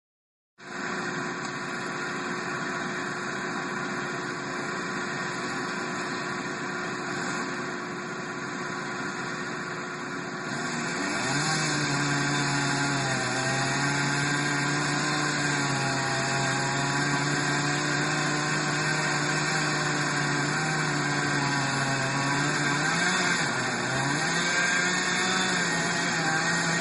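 Engine running steadily. About ten seconds in it grows louder and a deeper note sets in, which wavers and briefly rises and falls near the end.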